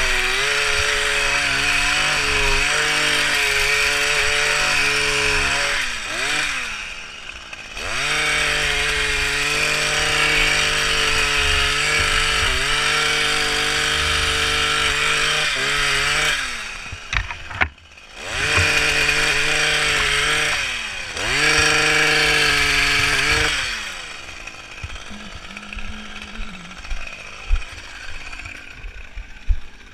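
Petrol hedge trimmer's two-stroke engine running at high revs while trimming a hedge, dropping to idle and revving back up a few times. Near the end the throttle is let off and the engine falls away, leaving scattered knocks.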